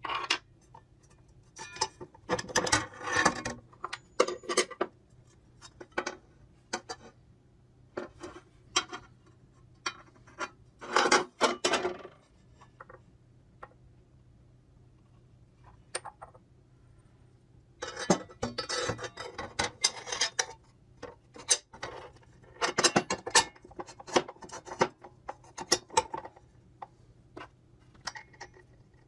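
Irregular clinks, clicks and knocks of hard objects being handled, coming in clusters with short quiet gaps, over a faint steady hum.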